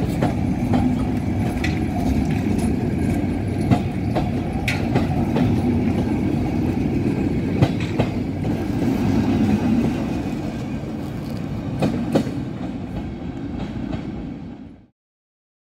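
Czech Railways passenger coaches of an express train rolling past: a steady rumble of wheels on rail, with sharp clicks as the wheels cross rail joints. The sound fades as the train draws away, then cuts off abruptly near the end.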